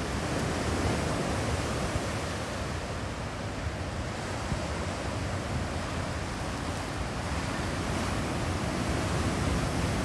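Ocean surf: waves breaking and foam washing up the shore in a steady, continuous wash of noise.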